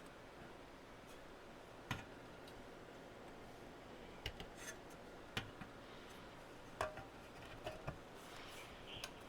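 Scattered light clicks and knocks, about seven spread over several seconds, of a small radio's case and parts being handled and fitted together as it is closed up on a workbench.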